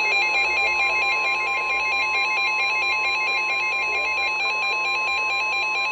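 NOAA Weather Radio warning alarm tone, a steady 1050 Hz tone, with a rapidly alternating two-pitch electronic beeping layered over it. It marks an incoming warning-level alert, here a flash flood warning about to be read.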